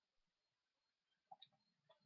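Near silence: room tone with a few faint short clicks a little past the middle.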